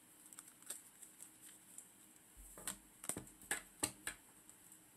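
Tarot cards being handled: scattered faint taps and clicks, with a few sharper ones in the second half.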